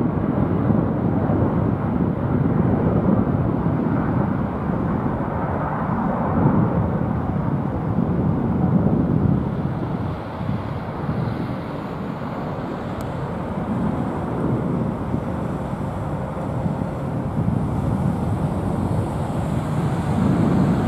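Boeing 777-300ER's twin GE90 turbofans at climb power after takeoff: a steady, deep jet rumble that swells and eases slowly, dipping a little around the middle and building again near the end.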